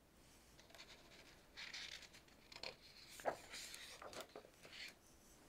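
Faint rustling and swishing of a paper page in a hardcover picture book being turned by hand.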